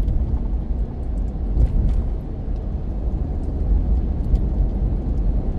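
Car road noise heard from inside the cabin while driving: a steady low rumble of engine and tyres on the road.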